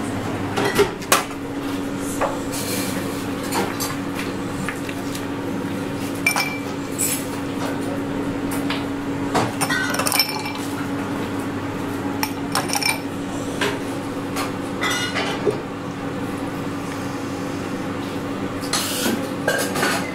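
Glassware and steel bar tools clinking and knocking as a cocktail is finished: ice cubes dropped into a rocks glass with tongs and a stainless shaker tin set down, several of the knocks briefly ringing. A steady low hum runs underneath.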